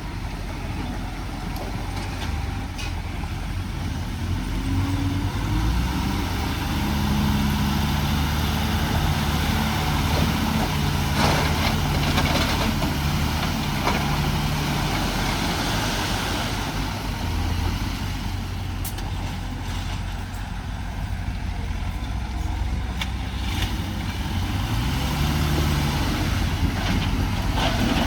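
Heavy diesel earthmoving machine's engine working: it revs up about five seconds in and holds, eases off around seventeen seconds, then revs up again near the end, with a few sharp metallic knocks.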